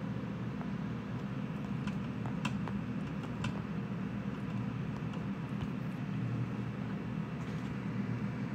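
Steady low background hum with a few faint scattered clicks.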